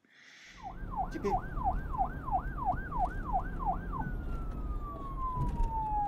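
Siren sound effect: a fast yelp of repeated falling sweeps, about two and a half a second, that switches about four seconds in to one long, slow falling wail, over a low rumble. A brief hiss comes just before it starts.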